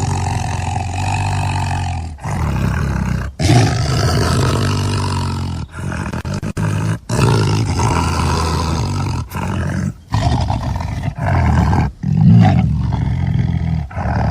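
A large wild animal roaring over and over, loud deep calls broken by short sudden gaps every second or two.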